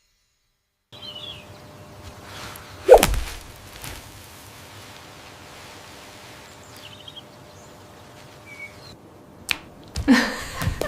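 Steady soft ambience with a few faint bird chirps scattered through it, and one loud sudden swishing thump about three seconds in. Near the end a louder pitched sound begins.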